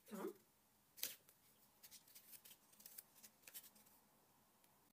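Faint rustling and flicking of a small paper booklet's pages being handled and turned, with one sharper paper snap about a second in and scattered soft clicks after it.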